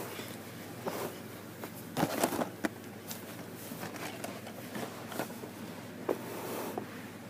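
Handling noise: scattered clicks and knocks, a cluster of them about two seconds in, over a steady low hum.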